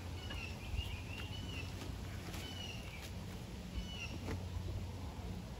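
Young turkey poults peeping: short, high chirps repeated every second or so, some rising and some falling.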